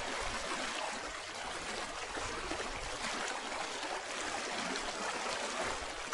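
Flowing water, a steady even rush.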